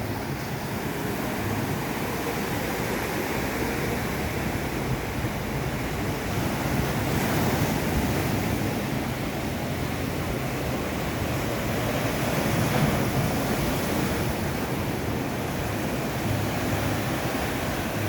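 Ocean surf washing onto a beach: a steady roar of breaking waves that swells a little louder twice, about seven seconds in and again near the thirteenth second.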